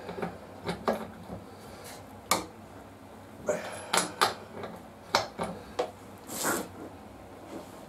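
Metal hand tools and parts clinking and knocking against each other at irregular intervals, about a dozen short sharp clinks, with a brief hiss about six and a half seconds in.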